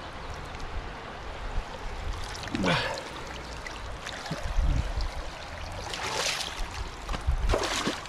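River water rushing steadily, with three brief louder splashy bursts about three, six and seven and a half seconds in.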